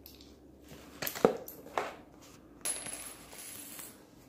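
Coins clinking into a plastic toy coin-operated machine: a few light clicks and rattles about a second in, then a steady high-pitched whir for about a second.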